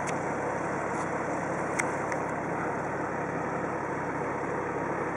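Steady background hum of road vehicles idling, with a few faint clicks.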